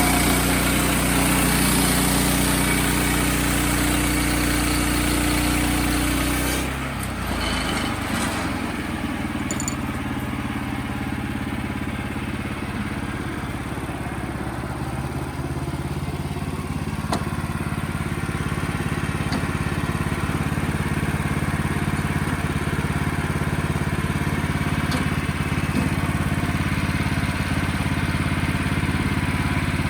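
Engine running steadily. About seven seconds in its note changes suddenly and dips briefly, then it runs on evenly.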